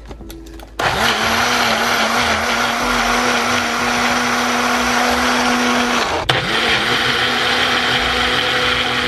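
Baby Bullet personal blender running, pureeing canned petite diced tomatoes. It starts about a second in and runs steadily, stops for a moment and starts again about six seconds in, then cuts off at the end.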